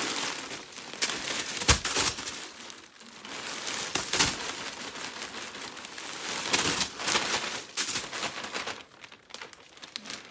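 Plastic shipping bag crinkling and rustling as it is shaken upside down and its contents are dumped out, with a couple of thumps along the way. The rustling dies down near the end.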